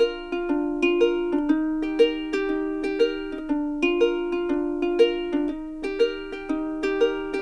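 Background music: a bright plucked-string tune, ukulele-like, with a light steady beat.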